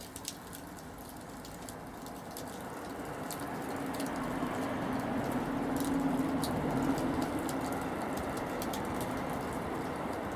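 Wood fire crackling, with sharp pops scattered throughout over a rushing noise that grows louder during the first four seconds or so and then holds steady.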